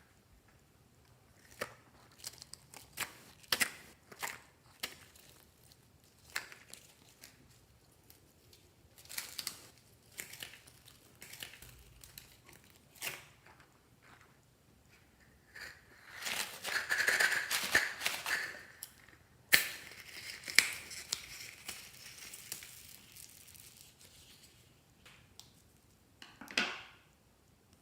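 Hands working slime and the items being mixed into it. Scattered sharp crackles and clicks give way past the middle to a longer crinkling, tearing stretch, followed by a sharp snap.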